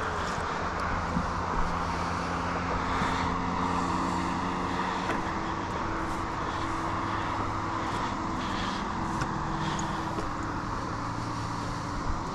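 A distant engine droning steadily, its pitch easing slightly lower near the start and climbing again near the end, with a few light clicks over it.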